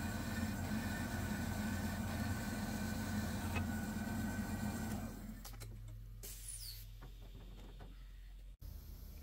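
Horizontal metal-cutting bandsaw running with a steady hum and whine as it finishes cutting a clevis off a hydraulic cylinder rod through the weld. The saw shuts off about five seconds in, leaving a quieter background with a few light clicks.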